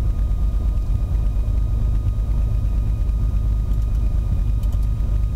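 Steady low rumble of a Beechcraft A36 Bonanza's piston engine running at low power, heard inside the cabin, with no change in pitch.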